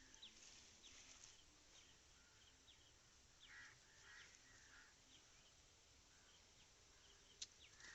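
Near silence: faint outdoor ambience with repeated short, high chirps, about two a second, from small animals.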